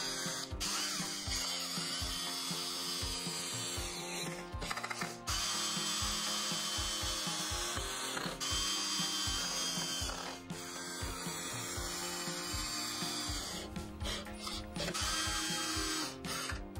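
An 18 V cordless drill/driver driving wood screws into pine, in several runs with short pauses between them.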